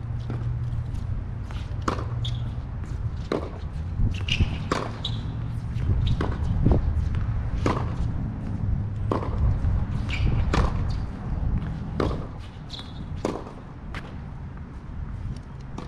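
Tennis rally on a hard court: rackets striking the ball and the ball bouncing, sharp pops at irregular intervals, about one or two a second, over a steady low rumble.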